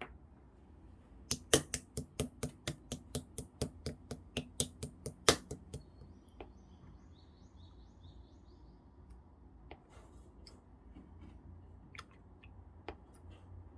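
Clear, colourless slime being pressed and squeezed by hand, making a quick run of sharp sticky clicks, about five a second, for around four seconds, then only occasional single clicks.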